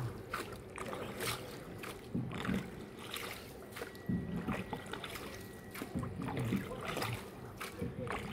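Hand-rowed tourist boat under way: irregular knocks and clicks of the oar working against the boat, repeating every half second to a second over a quiet water background.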